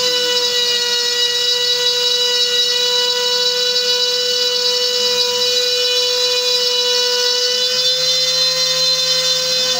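Trim router used as a CNC spindle running at a steady high whine while its bit cuts a groove into a board. Underneath, a lower hum from the machine's axis motors changes pitch a couple of times as the cutting path changes direction.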